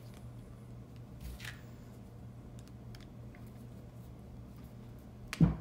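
Faint handling sounds as a steel grip screw is worked into the screw hole of a Hogue rubber revolver grip: small clicks and rubbing over a steady low hum, with one sharp thump near the end.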